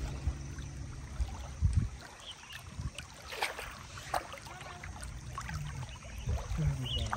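Water lapping and rushing along the side of a moving canoe, with a few short splashes and knocks about three and four seconds in.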